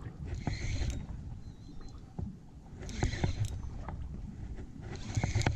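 Water lapping and splashing against the hull of a small drifting boat, surging about every two seconds, with a few sharp knocks and a low rumble underneath.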